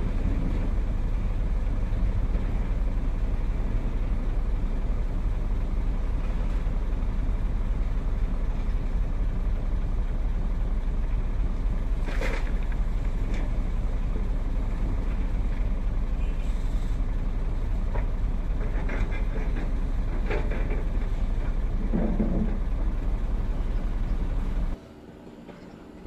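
Komatsu PC210 hydraulic excavator's diesel engine running steadily while it loads soil into a dump truck, with a few clunks and clatters of the bucket and falling dirt, the loudest about twelve seconds in. The engine sound cuts off abruptly near the end.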